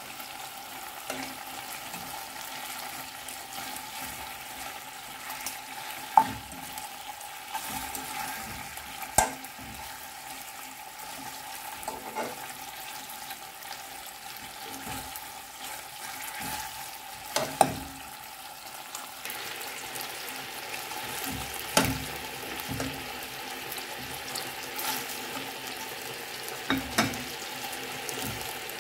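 Chicken pieces frying with a steady sizzling hiss in the fat they are giving off, in a nonstick pan. A metal fork clinks and scrapes against the pan several times as the pieces are turned.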